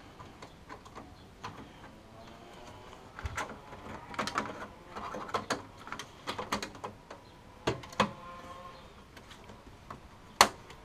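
Thin metal IO shield being pushed and worked into the rear opening of a steel PC case: scattered light clicks, scrapes and rattles, then one sharp click near the end as it seats in place.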